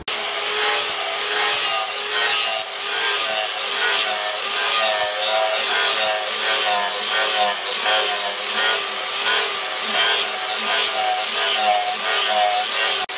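Angle grinder with an abrasive disc grinding the steel of a leaf-spring cleaver blade, a continuous grinding rasp over a motor whine that wavers up and down in pitch over and over.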